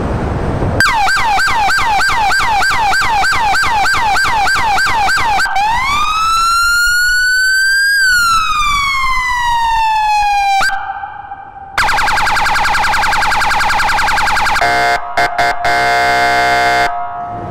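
Police car electronic siren on a Dodge Charger cycling through its tones: rapid up-and-down sweeps, then a slow rising and falling wail, then a buzzing horn tone that breaks into short blasts near the end.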